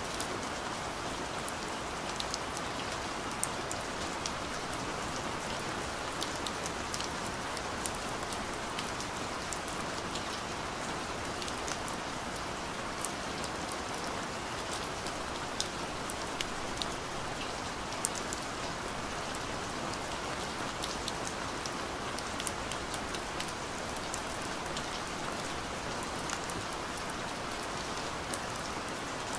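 Steady rain falling: an even hiss with scattered sharp ticks of individual drops.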